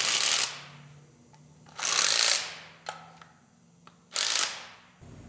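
Cordless impact wrench hammering in three short bursts, driving bolts into a John Deere 4230 engine block. The first burst comes at the start, the second about two seconds in and a shorter third about four seconds in.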